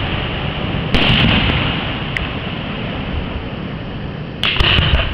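Fireworks display: aerial shells bursting, with a cluster of sharp bangs and cracks about a second in and another near the end, over a steady low rumble.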